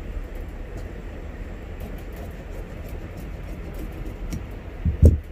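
Steel tailor's shears snipping through cloth along a folded strip, heard as a few faint clicks over a steady low background rumble. A short thump comes near the end.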